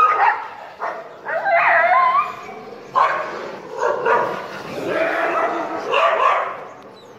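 Street dogs barking and yelping as they chase one another, in a string of loud bursts with wavering pitch that die down near the end.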